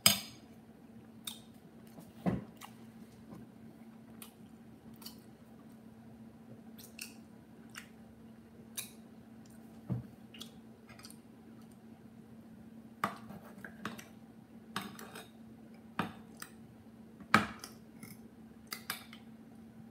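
Fork and knife clinking and scraping on a ceramic dinner plate at irregular intervals, with a few louder knocks, over a steady low hum.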